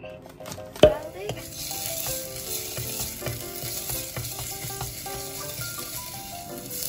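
Minced garlic sizzling in oil in a saucepan as it is stir-fried with a spatula. A sharp knock sounds just under a second in, before the sizzle sets in.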